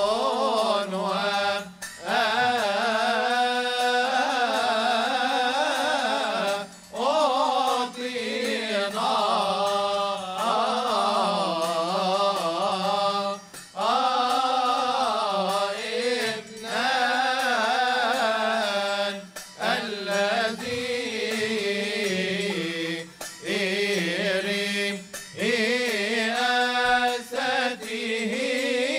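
Male Coptic chanters singing a slow, melismatic hymn in one melodic line, with short pauses for breath, over the steady ringing of Coptic hand cymbals and a triangle.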